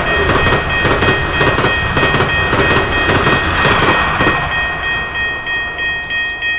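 A train passing a railway level crossing, its wheels clacking over the rail joints, dying away after about four seconds. Over it the crossing's warning signal keeps sounding with steady high tones.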